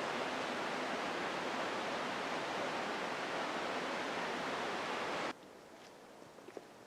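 Waterfall's steady rush of falling water, cutting off abruptly about five seconds in, leaving a much quieter background with a few faint clicks.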